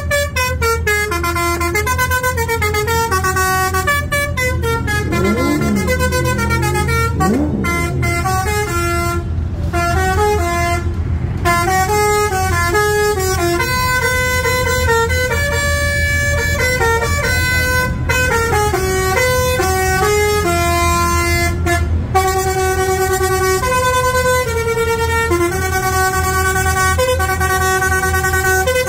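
A truck's multi-tone musical air horn plays a continuous tune of short stepped notes, over the steady low running of the truck's engine.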